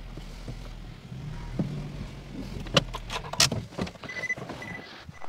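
Nissan X-Trail T31 engine running at idle. A few sharp clicks and knocks come as the driver's door opens, followed by a warning chime beeping about twice a second.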